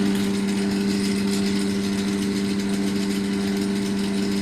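Lotus drill press motor running steadily with a constant hum, powered from a modified-sine-wave power station inverter during a roughly 600 W load test.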